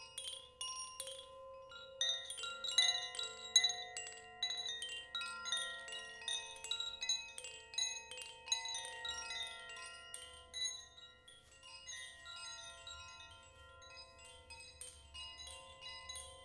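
Koshi chime tinkling: its clapper strikes the tuned rods in rapid, irregular strokes, giving overlapping ringing notes that thin out and grow quieter toward the end.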